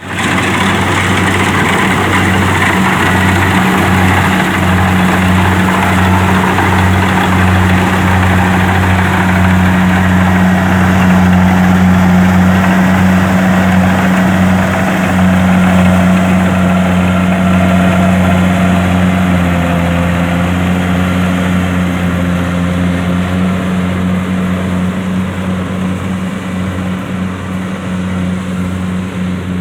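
Kubota DC-70 combine harvester's diesel engine and threshing machinery running steadily with a loud low hum, the sound easing a little toward the end.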